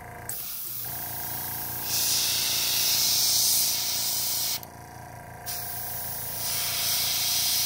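Gravity-feed airbrush hissing as it sprays paint, in two long bursts with a short pause a little past halfway. A steady low hum runs underneath throughout.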